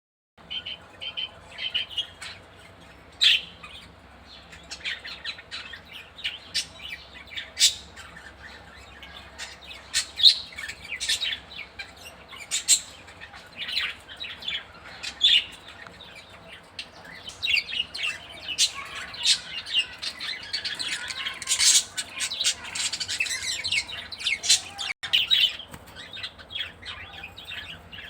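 Female budgerigar chirping in short, irregular calls, with a denser stretch of continuous chatter about two-thirds of the way through.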